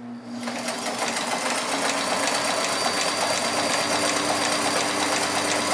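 Kenmore 158.14100 all-metal sewing machine with a 1.2-amp motor, running and stitching. It speeds up over the first second, then sews steadily with a motor hum and rapid, even needle strokes.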